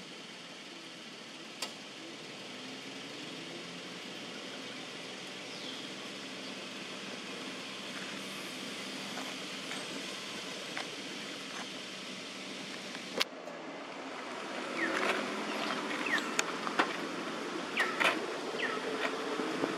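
Steady outdoor background noise with a sharp click just after a second and a louder one about two-thirds of the way through, followed by a run of short, quick rising chirps over the last five seconds.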